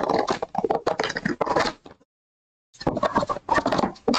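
Cardboard trading-card hobby box being handled and opened: dense scraping and rustling of cardboard with sharp clicks. It stops for about a second midway, then resumes.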